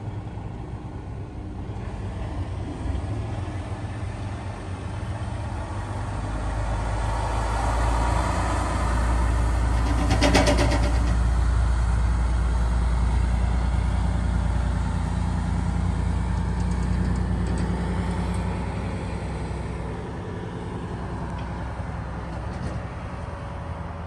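Truck engine running as the truck moves off, growing louder over several seconds and then easing back. A brief rapid rattle comes about ten seconds in.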